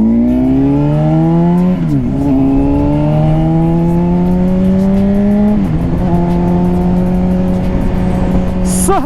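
Honda CBR600RR's inline-four engine accelerating hard under a rider, its pitch climbing, dropping at an upshift about two seconds in, climbing again to a second upshift past the middle, then holding a steady note.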